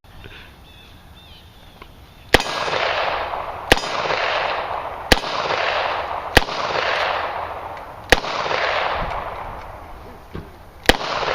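Taurus 617 revolver firing six single shots, spaced about one and a half to three seconds apart. Each crack is followed by a long rolling echo.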